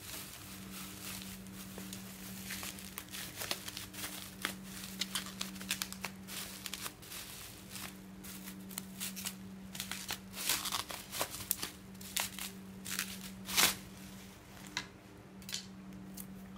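Plastic bubble wrap being crinkled and pulled off a small boxed package by hand: irregular crackling and rustling, loudest about two-thirds of the way through.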